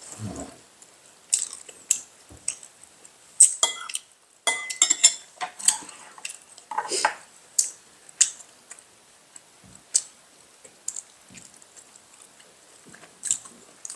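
Chopsticks tapping and clinking against ceramic bowls and plates at a dinner table: scattered light knocks, with a couple of short ringing clinks about four to five seconds in.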